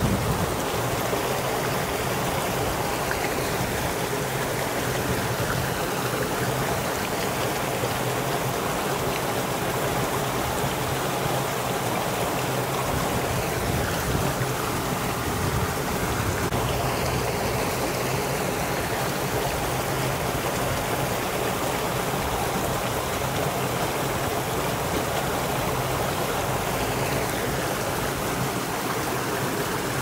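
Steady rush of flowing water, an even hiss that does not let up.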